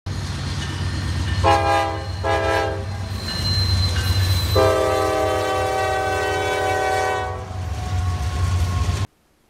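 Train horn sounding two short blasts, then one long blast of about three seconds, over the steady low rumble of a moving train. The sound cuts off suddenly near the end.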